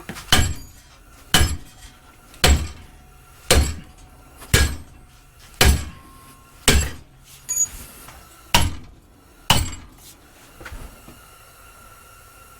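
Hammer blows on a steel plate, about ten strikes roughly once a second, bending the plate along a groove ground into it; a faint metallic ring hangs between the blows. The blows stop about ten seconds in.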